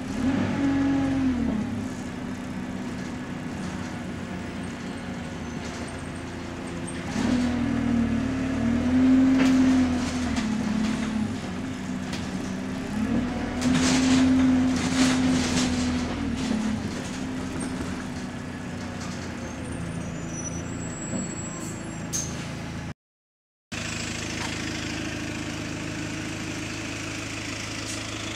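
Diesel engine of the single-deck bus ENL74 heard from inside the saloon, the engine note swelling and rising and falling in waves as the bus accelerates and eases off. After a short cut near the end, the same bus's engine idles steadily at a stop.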